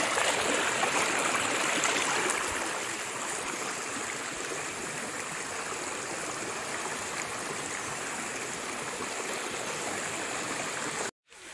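Hill stream water rushing steadily, a little louder in the first two seconds.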